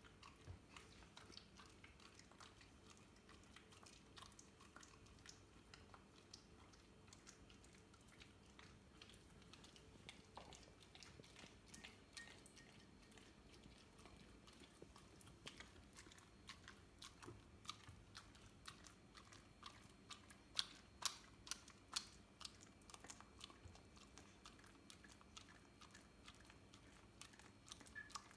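A whippet licking and chewing sticky peanut butter: faint, irregular wet smacks and tongue clicks, with the loudest cluster a little after two-thirds of the way through.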